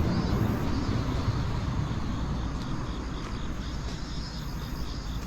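A passing vehicle's low rumble slowly fading away, with insects chirping in a faint, evenly repeating pulse.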